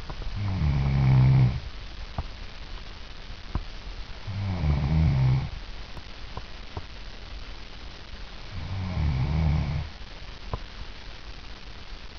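A woman snoring in her sleep: three snores, each about a second long and spaced about four seconds apart, with a few faint clicks between them.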